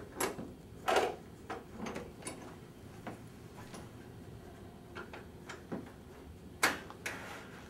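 Scattered light clicks and knocks from hand work with a screwdriver at a window's jamb liner and sash shoe. The sharpest knock comes near the end.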